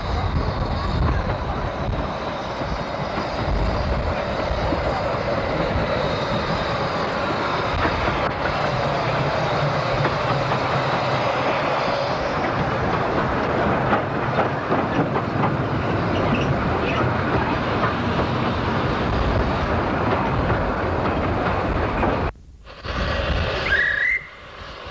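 Miniature steam train running along the track, a steady noisy run past. Near the end the sound cuts out twice briefly, with a short rising squeal between the two gaps.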